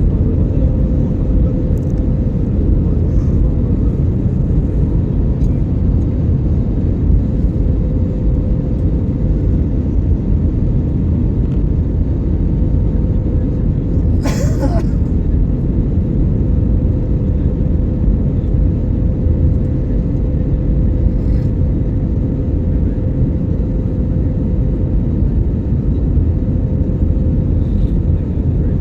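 Steady, loud low rumble of an airliner's engines and rushing air, heard from inside the passenger cabin, with a steady hum running through it. A brief sharp sound cuts in once about halfway through.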